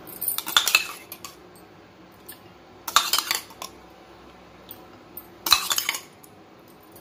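Steel spoon clinking and scraping against a stainless steel cup while scooping out soaked sabja seeds, in three short bouts a couple of seconds apart.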